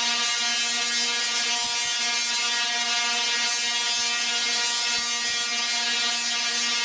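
Zeusaphone ZX-160 singing Tesla coil discharging, its arcs buzzing loudly at one steady pitch with a hiss above it.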